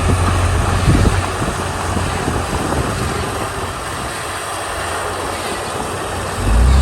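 Komatsu D31 bulldozer's diesel engine running under load, with a steady rumble and mechanical noise. It eases off in the middle, then a loud low rumble rises near the end as the engine works harder.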